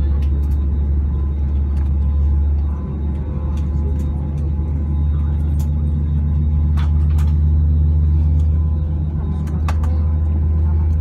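Airbus A320neo's turbofan engines heard from inside the cabin during taxi: a steady, heavy low rumble with a faint high whine over it. A few faint clicks come through near the middle and toward the end.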